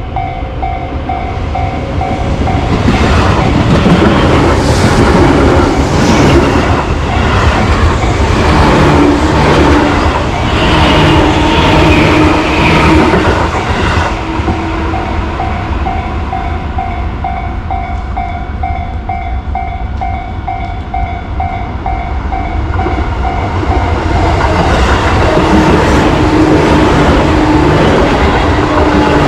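Japanese level-crossing warning bell ringing in an even, rapid rhythm while trains pass. One train goes through from a few seconds in to about halfway, its wheels clattering over the rail joints, with the bell heard plainly again after it. A second train arrives near the end.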